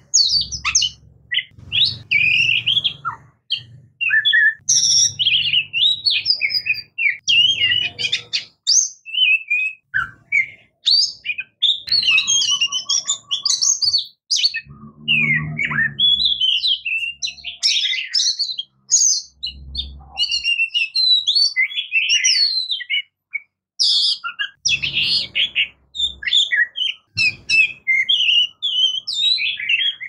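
Oriental magpie robin singing a continuous, varied song of rapid whistles, trills and chirps, with short low rumbles now and then underneath.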